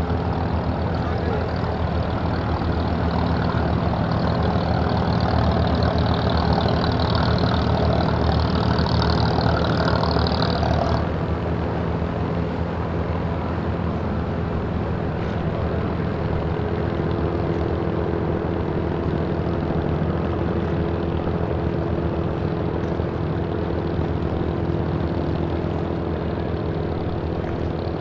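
An engine running steadily with a low, even hum. A hissing, rushing noise on top of it stops abruptly about eleven seconds in, while the hum carries on.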